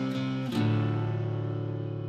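Background music on guitar: held chords ringing, with a new chord struck about half a second in and slowly fading.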